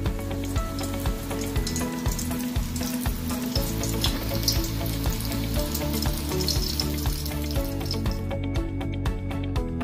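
Chuchvara dumplings deep-frying in hot oil: a steady crackling sizzle, with background music playing underneath.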